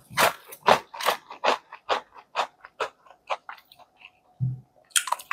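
Close-up crunchy chewing of small, crisp McDonaldland cookies, about two crunches a second, growing fainter after about four seconds.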